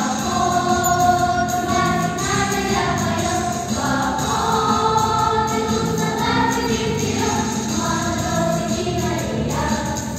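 Children's choir singing a song together over an instrumental accompaniment, holding long notes.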